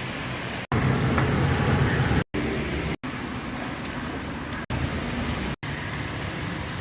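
Typhoon wind and rain noise with heavy wind rumble on the microphone, in a run of short clips that cut off abruptly about five times.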